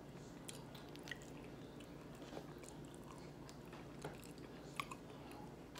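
Faint close-up chewing of food, with a few short wet mouth clicks scattered through it, the sharpest about four and five seconds in.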